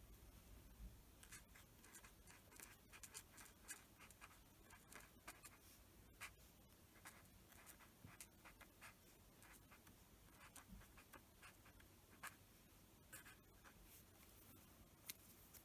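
Faint scratching of a pen writing a line of handwriting on paper, in short, irregular strokes.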